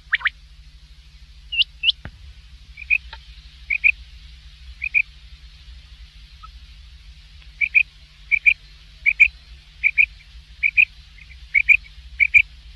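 Quail calling: short, high double notes repeated about once a second, with a pause in the middle, and a few sharp downward-sweeping calls near the start. A single knock about two seconds in, over a faint steady low hum.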